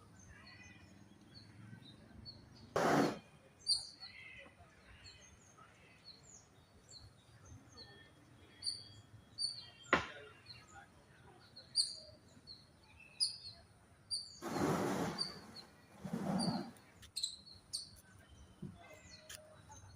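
Small birds chirping now and then in short high notes over a faint outdoor background, with a few brief louder rushes of noise and a single sharp click about halfway through.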